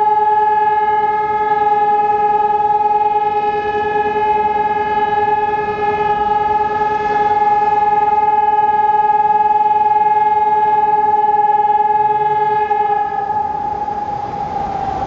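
Civil-defence warning sirens (a DS 977 and an ECN 1200) sounding the steady continuous tone of the monthly siren test. Near the end the pitch starts to sag and fall as the siren winds down.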